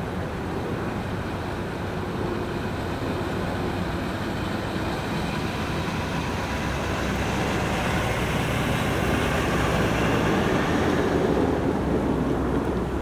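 An engine running steadily, growing gradually louder and then dropping off near the end.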